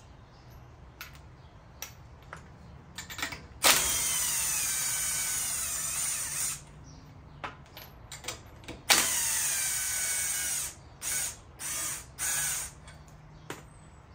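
Red cordless power tool spinning at a truck's rear wheel hub: two long runs with a whine that drops in pitch as the motor loads, then three short blips, with small tool and metal knocks between.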